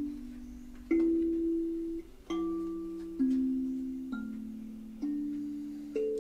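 Soft instrumental background music: a slow series of chords, each sounded once and left to fade, about one a second.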